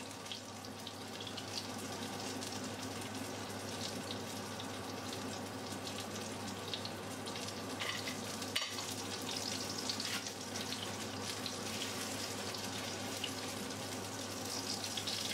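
Thickening milk rice pudding simmering in a pot, a steady sizzling hiss with small bubbles popping, and now and then a metal ladle stirring and knocking against the pot.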